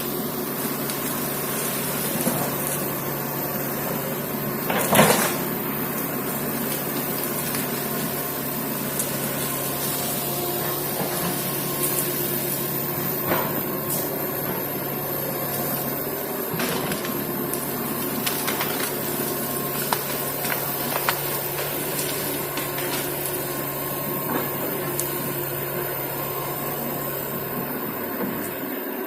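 Komatsu excavator engine running steadily under work, with scattered knocks and cracks, the loudest about five seconds in.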